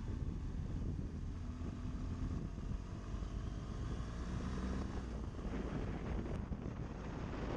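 BMW GS adventure motorcycle's engine running at a steady cruise, with wind noise on the microphone.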